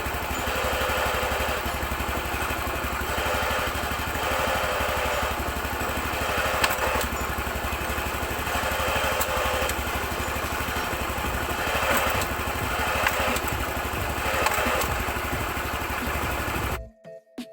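Honda Super Cub 90's single-cylinder four-stroke engine running steadily at low speed, with a few sharp clicks along the way. The sound cuts off abruptly near the end.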